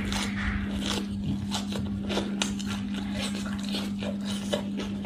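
Close-miked chewing of raw leafy greens and shredded vegetable salad: many short crisp clicks and crunches of mouth noise, over a steady low hum.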